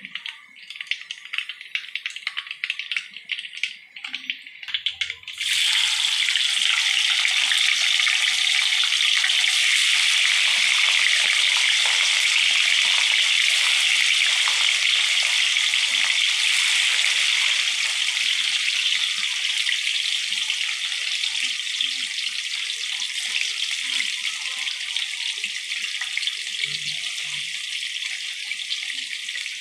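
White tofu cubes going into hot oil in a wok set off a sudden loud, steady sizzle about five seconds in, which slowly eases off as they fry. Before that, the oil crackles lightly around a small heap of frying seasoning.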